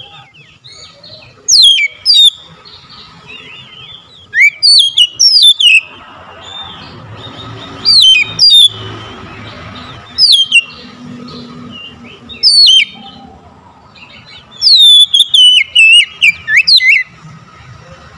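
Oriental magpie-robin singing: loud, clear whistled notes that slide steeply down in pitch, given in short phrases with pauses of a second or two between them, and a longer run of notes near the end.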